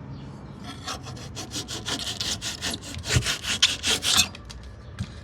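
A blade sawing back and forth through cured spray foam, trimming off the excess: a quick run of rasping strokes, several a second, that pauses briefly near the end.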